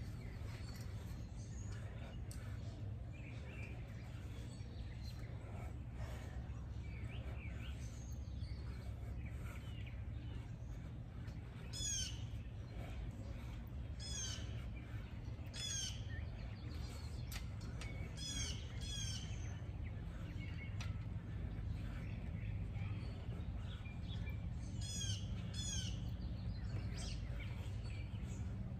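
Outdoor ambience: a steady low rumble, with a bird giving short, sharp, sweeping chirps about seven times from a little before halfway on, several of them in quick pairs.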